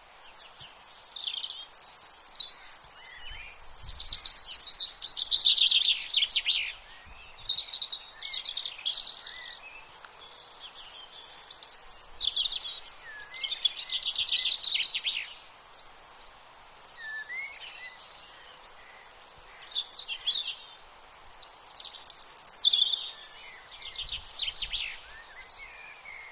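Songbird calls: bursts of rapid high trills about every few seconds, with short chirps and whistled notes between them, over a steady background hiss.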